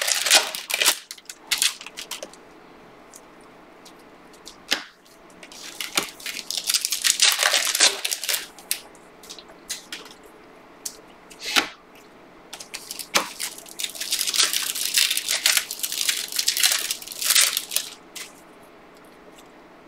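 Panini Prizm basketball trading cards being flipped through by hand, the slick cards sliding against each other in bursts of rustling, with a few sharp clicks and taps in between.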